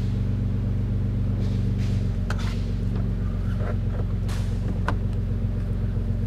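A steady low hum of a running motor or machine, with a few sharp clicks and light knocks scattered through it.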